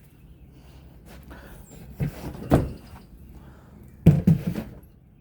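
Two dull knocks, about two seconds apart, the second sharper and louder: things being handled and set down.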